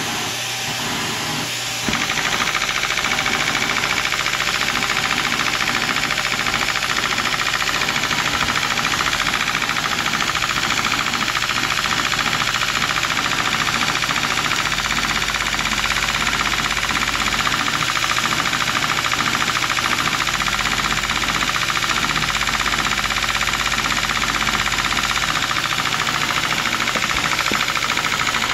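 Lego 4x4 piston vacuum engine running with a fast, steady clatter that sounds kinda like a diesel. It gets louder about two seconds in and then runs on evenly.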